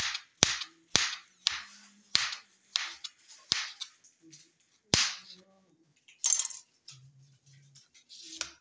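Kitchen knife slicing a carrot on a plastic cutting board: sharp knocks of the blade on the board, about two a second for the first four seconds. Then a single louder knock about five seconds in and a brief scrape near six seconds.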